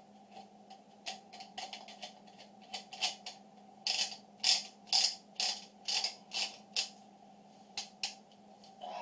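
Remington 870 shotgun's magazine cap being screwed back onto the magazine tube, its retainer detent ratcheting in a run of sharp clicks, loudest and most regular through the middle.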